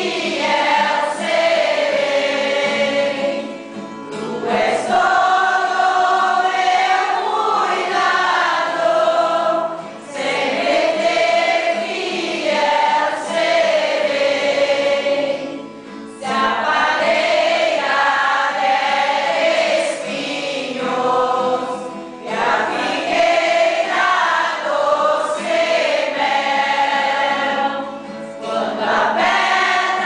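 Group singing by mostly women's voices with a few men's, in long phrases broken by short breaths about every six seconds.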